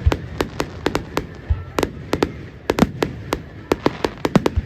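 Fireworks display: a rapid, irregular run of sharp bangs and cracks, several a second, with a few deeper booms among them.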